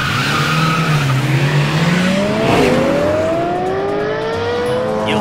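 Cartoon sound effects of race cars launching off the line: engines revving with several rising pitches, over a steady tyre-screech noise.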